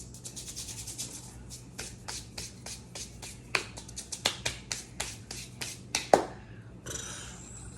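Hands crumbling and handling a dry, powdery microwave-chunk mixture: a quick run of small sharp crackles and taps, about four or five a second, then a short soft rustle near the end. The mixture failed to set into chunks and is crumbling to powder.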